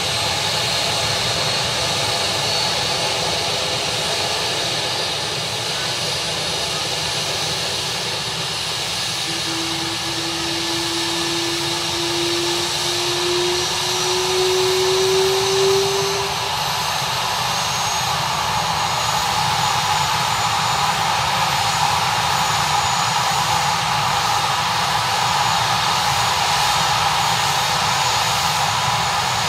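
Air ambulance helicopter's turbine engines running: a loud, steady whine made of several tones over a rushing noise. A separate tone climbs slowly in pitch about a third of the way in and fades a few seconds later.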